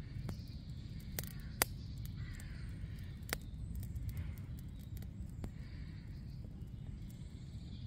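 Newly lit campfire of damp sticks crackling, with a few sharp pops. A bird calls in the background a little after two seconds in.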